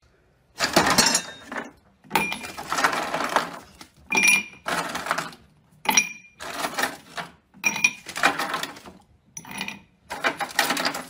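Ice cubes rattling and clinking in a plastic freezer basket, in about eight separate bursts, some with a brief ringing clink.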